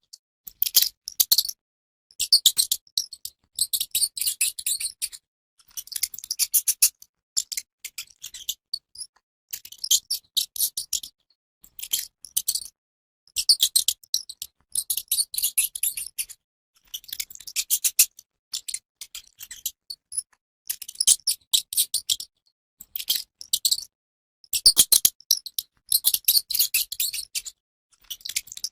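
Mouse squeaking: rapid, high-pitched chittering in bursts of a second or so, repeating about every two seconds with short silent gaps between.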